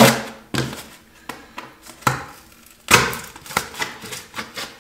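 Knife blade stabbing and cutting through a piece of cardboard to pierce a hole, heard as a string of sharp scratchy stabs, about half a dozen loud ones with smaller scrapes between.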